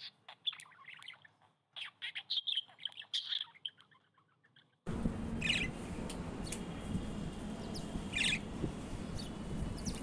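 Pet budgerigars chattering in quick, soft chirps. About five seconds in it gives way to a steady rushing background noise, with a few short, separate chirps over it.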